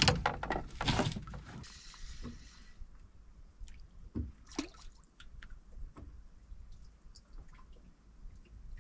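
A burst of clattering knocks in the first second, then scattered drips and small splashes of water with light ticks around a fishing boat.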